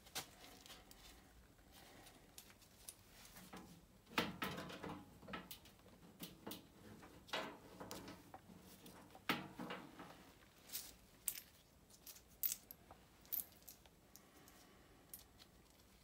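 Scattered metal clinks and clicks, with a few short scraping spells, from hand work on the blower motor's mounting arms and bolts against the sheet-metal blower housing.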